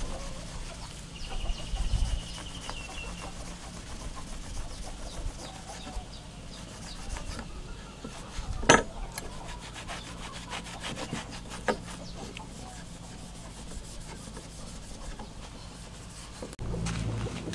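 Cloth rubbing along steel pliers as they are hand-polished: a soft scrubbing with faint ticks as the metal shifts on the wood. There is one sharp click about halfway through.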